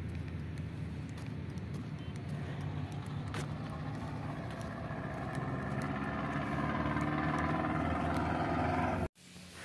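Steady engine hum that swells louder over the last few seconds, then cuts off suddenly.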